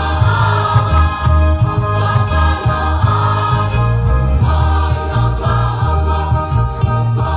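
A school choir singing together over amplified accompaniment with a strong, steadily moving bass line.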